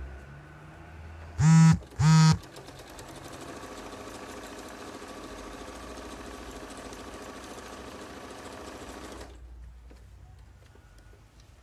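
Electric domestic sewing machine stitching a seam at a steady speed, its needle going in a fast even rhythm, for about seven seconds before it stops. Just before the stitching, about a second and a half in, come two short, much louder humming tones.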